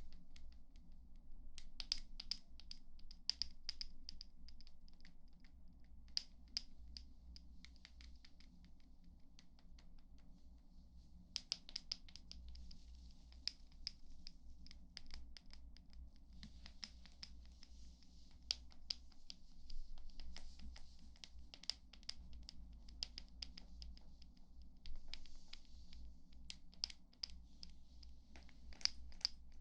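ASMR trigger sounds: light scratching and quick tapping in irregular clusters, with soft brushing hiss between them, over a faint low hum.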